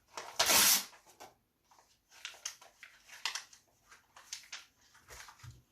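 A sheet of printed paper rustling sharply once, about half a second in, then a run of short crackly sounds of the paper being chewed.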